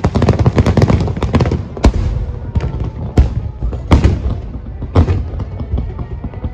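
Aerial firework shells bursting: a rapid barrage of bangs and crackle, then four single loud booms about a second apart.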